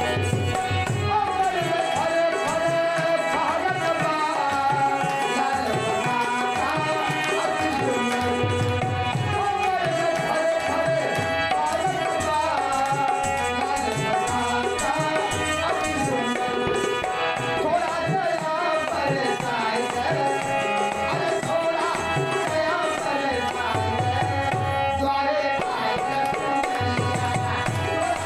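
Live devotional bhajan music: tabla drumming under a melodic line, playing steadily without a break.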